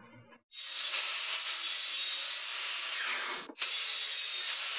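Kobalt sliding compound miter saw running and cutting through a walnut post to trim a clean end, a steady hiss-like whir that starts about half a second in. It drops out for an instant about three and a half seconds in and then carries on.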